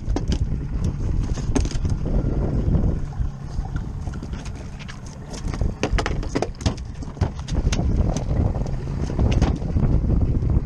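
Wind buffeting the microphone over a steady low boat rumble, with many short sharp clicks and knocks scattered throughout.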